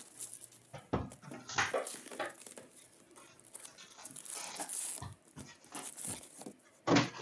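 Cardboard hobby box of hockey card packs being opened and handled: rustling and crinkling with scattered light taps, and one sharp, louder noise just before the end.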